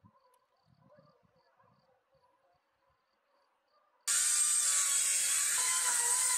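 Faint insect chirping, then about four seconds in an electric hand planer starts up on a squared timber beam. It runs loud and steady, with a high whine and the hiss of wood being shaved.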